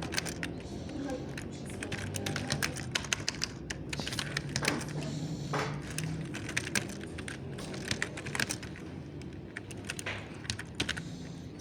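Mechanical keyboard typing: keystroke clicks in quick runs broken by short pauses.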